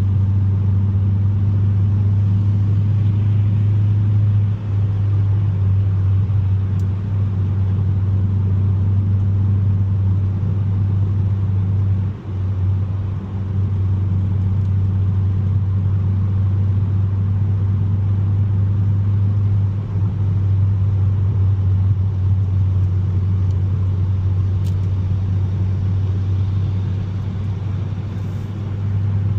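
Steady low drone of a 2021 Mazda 3 Turbo's 2.5-litre turbocharged four-cylinder driving along, engine and road noise running together. The level dips briefly a few times.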